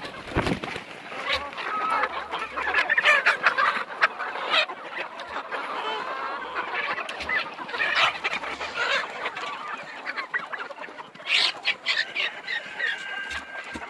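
A flock of local chickens clucking and calling over one another, dense and continuous, with a longer held call near the end.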